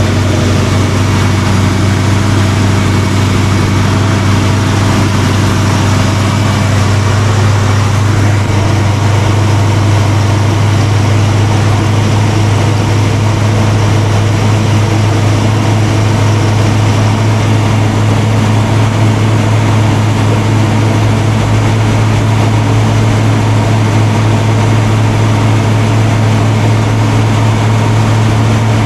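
Ford 289 V8 of a 1966 Mustang idling steadily during warm-up after a cold start, with a deep, even idle. The engine is running smoothly for a cold engine.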